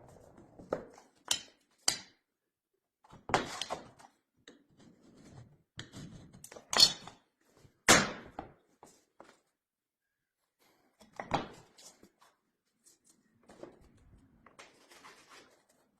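An axe striking and chopping through vinyl: a series of sharp, irregular knocks, the loudest just before the middle, with lighter knocks and rustling between and a short pause near the middle.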